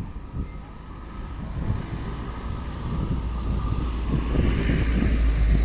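Wind buffeting the microphone, a low rumble that grows stronger through the second half, over general outdoor noise.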